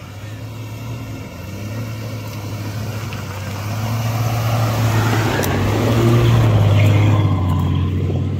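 Jeep Cherokee engine running under load as it climbs a rocky dirt trail, growing louder as it nears and passes close by, loudest about six to seven seconds in.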